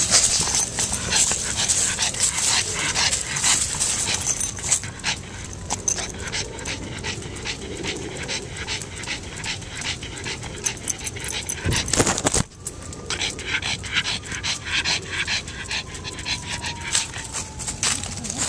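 A pug panting quickly and steadily close to the microphone, about three to four breaths a second, with a thump about twelve seconds in.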